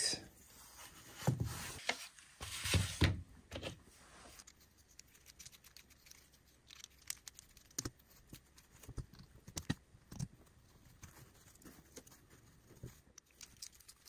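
Handling of a plastic screwdriver-bit case and small tools at a workbench. Near the start come a few short rustling scrapes. After that there are scattered faint clicks as a driver is set to the small screws of a pocket knife.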